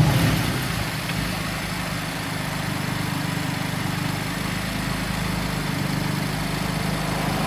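BMW M4's twin-turbo straight-six with an open intake fitted, idling steadily just after being started. The start-up flare eases down in the first second.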